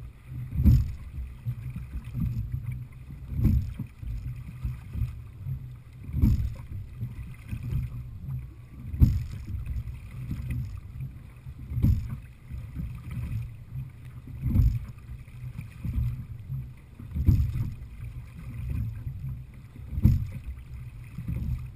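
Sliding-seat rowing boat being rowed steadily: a knock from the oars and oarlocks about every three seconds, one per stroke, over a steady low rumble of water and wind.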